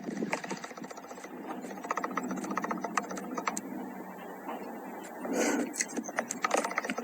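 Thunderstorm rain, with many irregular drops tapping on a hard surface over a steady rush of rain. The sound swells briefly about five seconds in.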